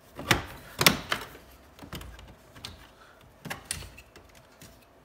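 Plastic side trim cover on a Toyota RAV4 dash being pried loose with a plastic panel tool: a run of sharp plastic clicks and snaps as its retaining clips let go, the two loudest about half a second apart in the first second, then several lighter clicks.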